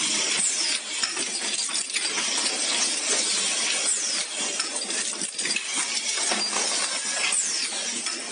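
Automatic ball bearing assembly line running: a dense, continuous clatter of steel bearings and rings clinking against metal tracks and fixtures, with machine mechanisms working and a few brief falling high-pitched sounds.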